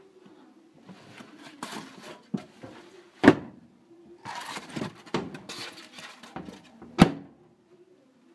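Stainless-steel oven doors of a commercial gas cooker banging shut: two sharp metal bangs nearly four seconds apart, with rustling and handling noise between.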